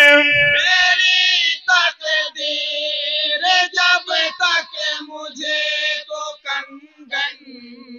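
A group of men chanting an Urdu naat without instruments through a PA microphone. A long held note ends about half a second in, short melodic phrases follow, and the voices drop to a faint held tone near the end.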